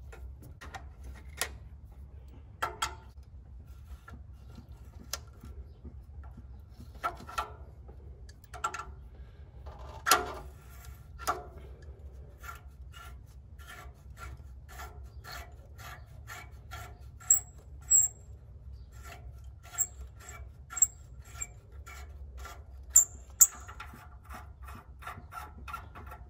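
Hand tools at work on the EGR valve of a 1999–2004 Ford Mustang V6: scattered knocks at first, then a string of light clicks about two or three a second, with a few sharp metallic clinks in the second half. A steady low hum runs underneath.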